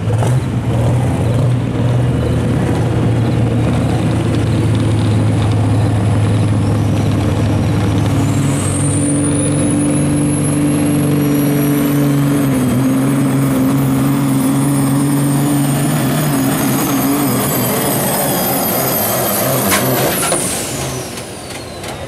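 Caterpillar-powered semi truck's diesel engine pulling hard under load against a weight sled. About eight seconds in, a turbocharger whistle rises and is held high. Near the end a sharp crack cuts across, the whistle falls away and the engine quietens.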